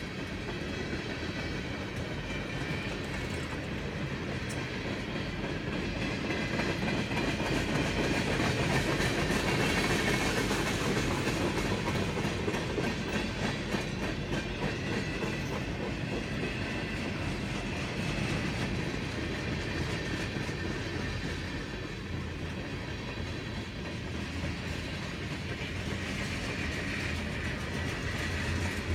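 Freight cars rolling past close by: tank cars, boxcars and gondolas, a steady rumble of steel wheels on the rails with a clatter over the rail joints, a little louder around the middle.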